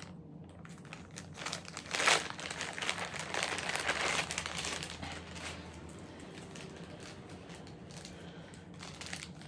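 Plastic or paper packaging crinkling and rustling in the hands as a new wallet is unwrapped. It comes in irregular crackles, loudest from about two to four and a half seconds in, then softer.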